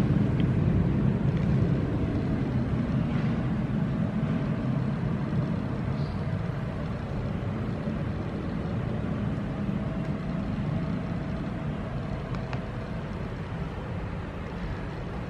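Steady low rumble of background noise, easing slightly quieter over the stretch, with a faint steady hum above it.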